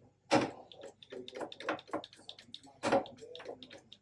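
Tools and metal parts being handled on a truck floor: irregular clanks, scrapes and small knocks, with two louder knocks about a third of a second in and about three seconds in.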